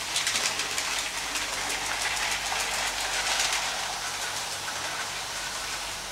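LEGO 12V electric train running on its track: a rattling clatter of wheels and motor with many quick clicks, loudest about half a second in and again around three seconds.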